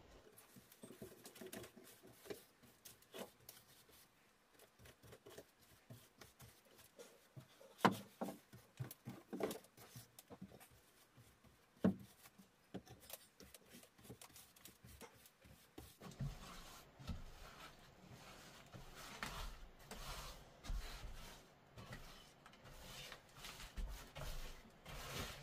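Faint scratching and dabbing of a paintbrush laying diluted wood glue onto rough, rotted log siding, in many short strokes, with a couple of sharper knocks about a third and halfway through.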